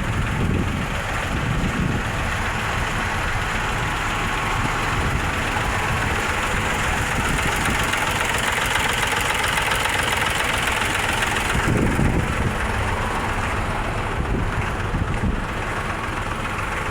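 Hino K13C six-cylinder diesel engine idling steadily, running again after a no-start fault. A steady hiss rides over it for the first two-thirds and then stops.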